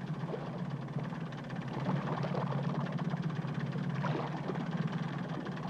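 A small motorboat's engine running steadily, with a low, even hum.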